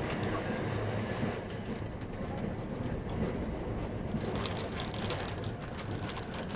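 Running noise inside a JR East E657-series limited express car at speed: a steady rumble of wheels on rail. It is a little louder in the first second, as another train passes close alongside.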